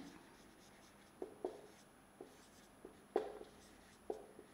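Whiteboard marker writing on a whiteboard: several short, faint strokes at an uneven pace as a word is written out.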